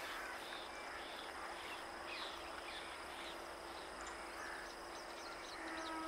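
Faint trackside ambience: birds chirping in short calls over a steady high insect drone and a low steady hum. The hum swells a little with overtones near the end.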